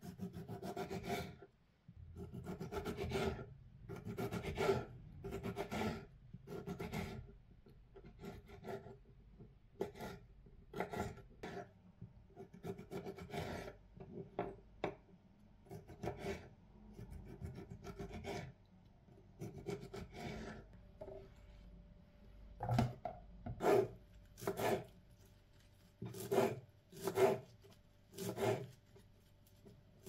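Kitchen knife cutting tomatoes on a wooden cutting board: repeated short strokes, about one or two a second, as the blade saws through the skin and taps the wood. From about two-thirds of the way in, the strokes become louder, sharper knocks of the blade on the board.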